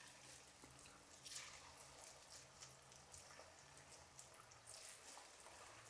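Faint sizzling and crackling of batter-coated cauliflower florets deep-frying in hot oil. It swells briefly about a second in and again near the end as more pieces go in, over a low steady hum.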